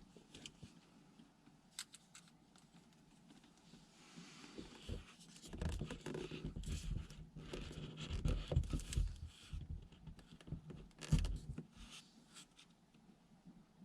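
Irregular rustling and scraping with light knocks and clicks, from about five to twelve seconds in, in a small room.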